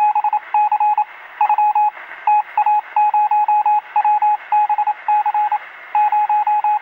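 Morse-code-style beeping: one tone keyed on and off in quick pulses and irregular groups over a steady hiss of narrow-band radio static, like a telegraph signal heard on a radio receiver.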